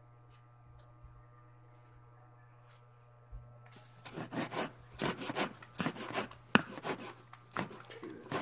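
Santol fruit and rind being torn and handled in a plastic bag. It is quiet for the first few seconds, then about four seconds in a dense, irregular run of rough tearing, scraping and rustling begins.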